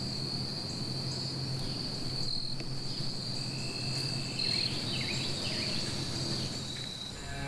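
Steady, high insect trilling in the woods, with a few faint descending chirps about four to five seconds in.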